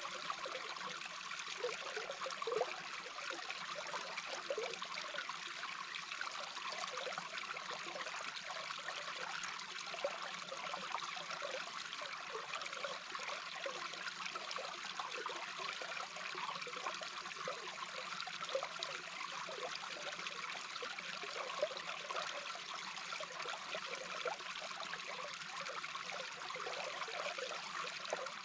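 A small brook's flowing water heard underwater: a steady rushing hiss with many quick bubbling blips throughout.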